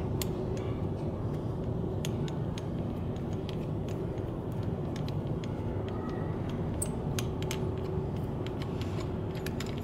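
Light metallic clicks and ticks of a small socket tool working the long through-bolts out of a car starter motor's housing, scattered and growing more frequent in the second half, over a steady low background rumble.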